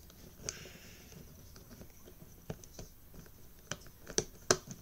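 Light, scattered clicks and taps of plastic Rubik's cube pieces being handled while the last piece is worked into place, with two sharper clicks near the end.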